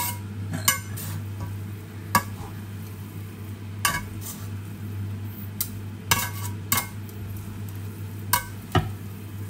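Kitchen tongs tossing and stirring pancit noodles in a non-stick frying pan: irregular sharp clacks of the tongs against the pan over sizzling, with a steady low hum throughout.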